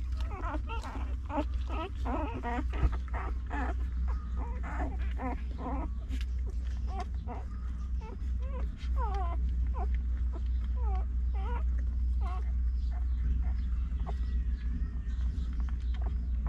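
Newborn Afghan hound puppies squeaking and whimpering as they nurse: many short, high, bending calls, busiest in the first half and sparser later. A steady low hum runs underneath.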